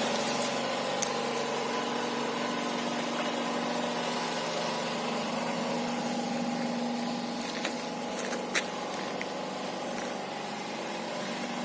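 Homemade roller machine running with a steady mechanical hum, with a few sharp clicks in the second half.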